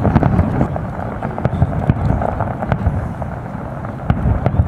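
Aerial fireworks going off: irregular sharp pops and cracks over a steady low rumble.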